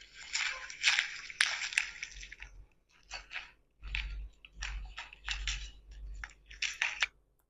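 AI-generated sound effect for the prompt "broken coffee cup": a series of sharp cracking and rattling noises in irregular bursts, separated by short silent gaps.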